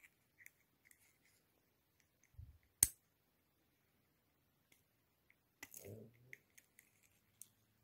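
Small plastic clicks and taps from a vintage Kenner R2-D2 action figure's parts being handled and pressed back together. One sharp click comes about three seconds in, and a cluster of clicks with a soft knock comes near the end.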